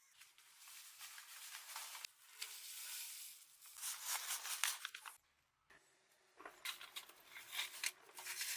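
Crinkling, crackling rustle with many small clicks, coming in uneven stretches and dropping nearly quiet for a moment about five seconds in.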